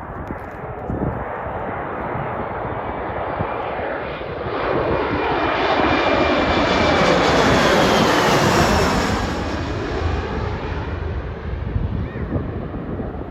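Jet airliner passing close by: its engine roar builds to a peak about eight seconds in and then eases off, with a high whine that slowly drops in pitch as it goes by.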